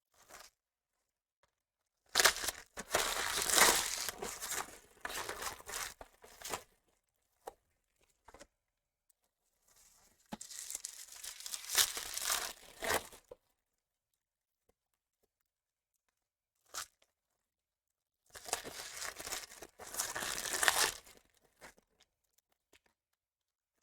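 Trading-card packaging torn open and crinkled, in three bursts of several seconds each with quiet gaps between.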